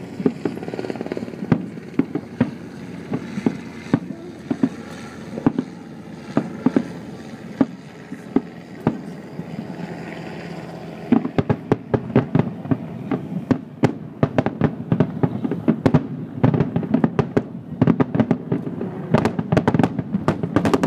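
Fireworks display: shells bursting in sharp bangs at irregular intervals over a steady rumble, turning into a dense, rapid barrage about halfway through.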